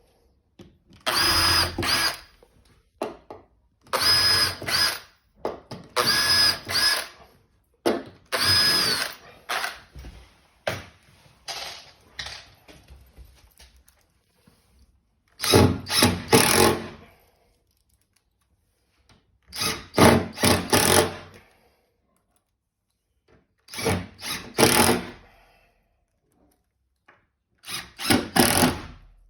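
Power drill run in about eight short bursts of a second or so, with pauses between, the motor's high whine rising and falling with each trigger pull.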